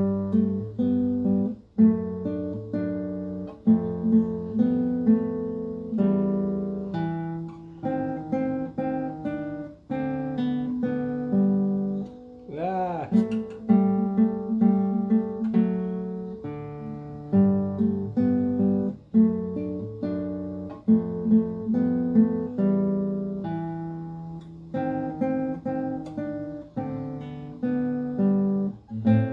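Classical (nylon-string) guitar played solo, picking the melody and the bass part of a simple duet together as a steady run of single plucked notes over bass notes, with a few mistakes.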